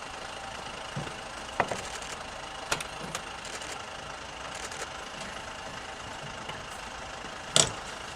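Steady hum of an idling vehicle engine amid street noise, with a few sharp knocks or clicks, the loudest one near the end.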